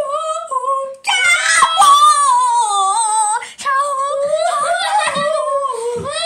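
A child singing wordless, drawn-out notes in a high voice that waver and slide, an exaggerated mock imitation of a Chinese tune, with a short break about halfway.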